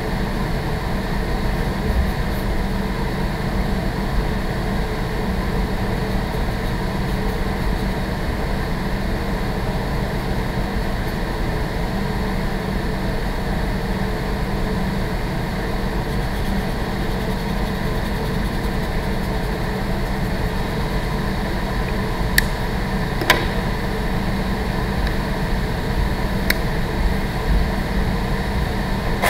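Building ventilation running with a steady hum and rush of air. Three short sharp clicks sound about three-quarters of the way through.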